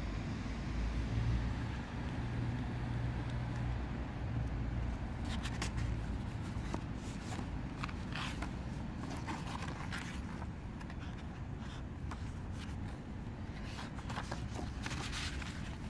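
Pages of a thick, heavy book being turned by hand: several brief paper rustles and slides, the longest near the end, over a steady low rumble.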